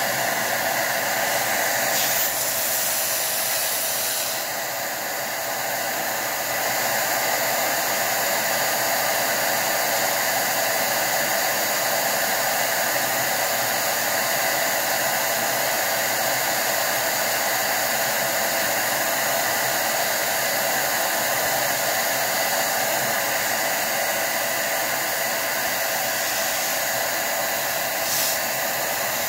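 DataVac electric duster running steadily, blowing hot, high-pressure air through a vaporizer cooling unit to force out resin build-up. It is a constant rush of air with a motor whine, easing slightly for a moment about five seconds in.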